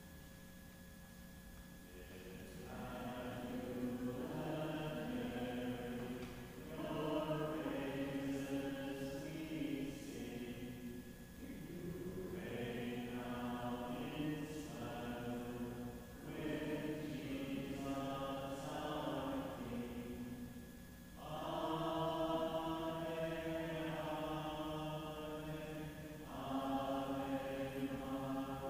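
Voices singing a slow, chant-like closing hymn, starting about two seconds in and going in phrases of about four to five seconds with short breaks for breath.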